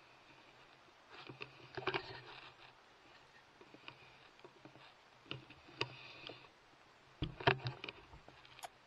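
Handling noise on a rifle-mounted thermal scope as the rifle is swung around: three bursts of rustling and rubbing with sharp knocks and clicks, the loudest near the end.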